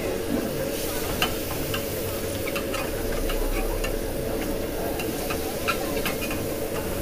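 Steel hand masher pounding pav bhaji vegetables in water on a hot flat griddle, with many short metallic clinks against the pan over a steady sizzle.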